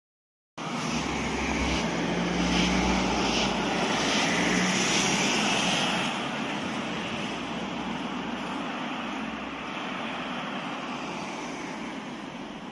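Road traffic: a vehicle passing close by with a low engine rumble and tyre noise, loudest in the first half, then steadier, quieter traffic noise from about six seconds in.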